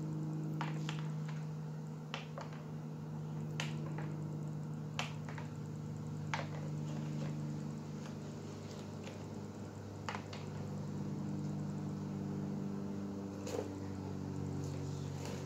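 A steady low mechanical hum, with a few short, sharp clicks scattered through it.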